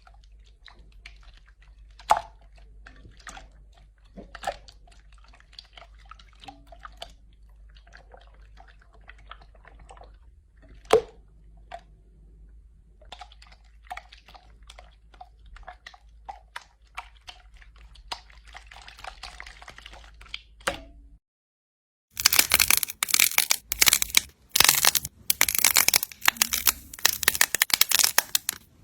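Slime being pressed and worked by hand: scattered small clicks and wet pops over a low hum. Then, after a sudden break about two-thirds of the way in, much louder dense crackling and crunching.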